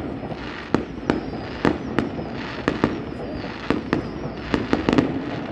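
Aerial fireworks going off: a quick, irregular string of sharp bangs and pops, about two a second, over a continuous crackle.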